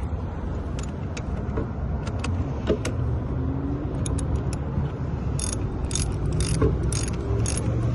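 Small metal clicks and taps of a wrench working on a car battery's cable terminal clamp, coming faster and louder in the second half, over a steady low rumble.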